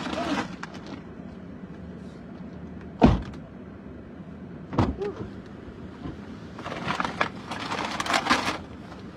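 A loud, deep thump about three seconds in, then a lighter knock near five seconds, followed by a couple of seconds of rustling and clicking.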